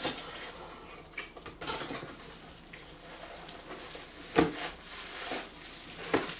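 Handling noise while unpacking a camera lens: light rustling and small taps of packaging, with two sharper knocks, one about four seconds in and one near the end.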